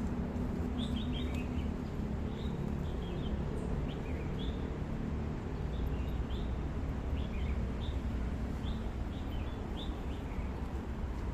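Small birds chirping in short, scattered calls, over a steady low rumble.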